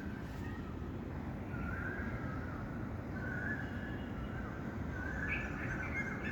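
Birds calling outdoors: a string of harsh calls, each about half a second to a second long, coming every second or so over a steady low background rumble.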